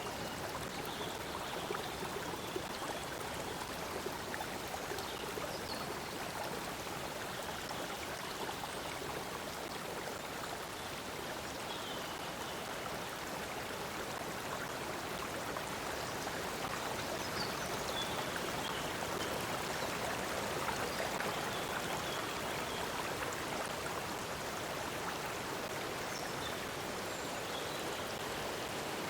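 Stream water flowing and splashing steadily, with a few faint high bird chirps now and then.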